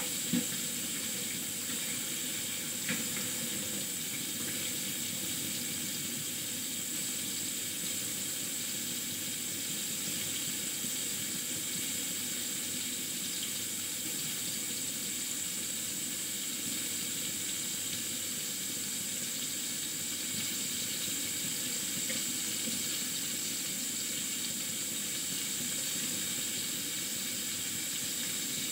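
Kitchen tap running steadily as something is rinsed under it, with a couple of small knocks about a second and three seconds in.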